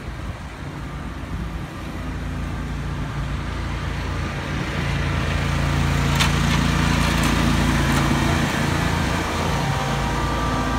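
Engine of a small cab tractor rigged as a snowplow, running steadily as it approaches and growing louder over the first several seconds, easing slightly near the end. A couple of short sharp clicks come midway.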